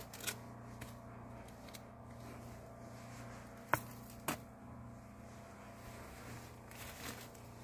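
A wooden stick prodding through loose blown-in attic insulation: a few light sharp taps and rustles, two of them a little under four seconds in, over a steady low hum.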